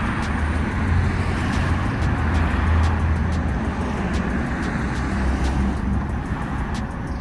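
City street traffic: vehicles passing with a steady low rumble.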